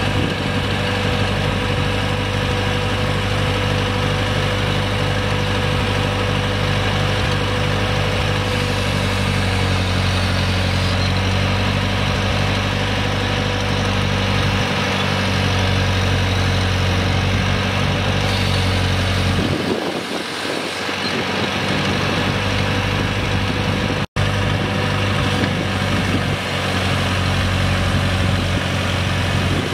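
Massey Ferguson MF35's four-cylinder gas engine running at a steady idle. Its note briefly changes about twenty seconds in.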